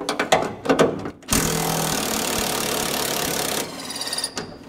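DeWalt cordless impact driver running on a radiator mounting bolt for about two seconds, then running lighter with fine ticking for under a second before it stops. A few clicks and rattles of the socket on the bolt come first.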